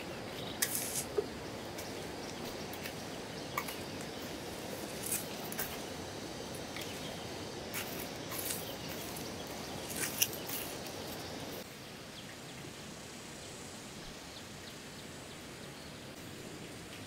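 Scattered crunches and clicks of crushed stone being handled on a gravel pile, over a steady outdoor hiss. Near 12 seconds the clicks stop and the hiss drops to a quieter steady level.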